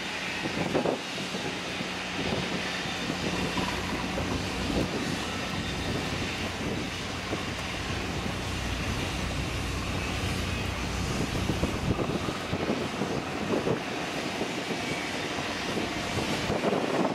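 Steady low drone of ship and tug engines working at low speed during a berthing manoeuvre, with wind buffeting the microphone.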